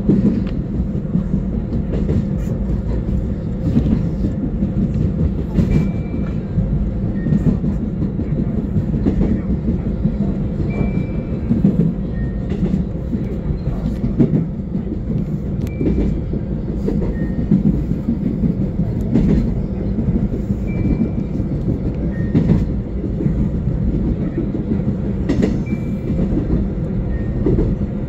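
Seoul Subway Line 1 electric commuter train running at speed, heard from inside the car: a steady low rumble of wheels on rail with irregular clicks over rail joints. A faint high two-note chirp recurs about every five seconds.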